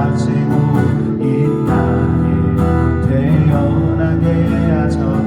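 Live music: a strummed acoustic guitar accompanying a slow worship song, the vocal line faint or between phrases.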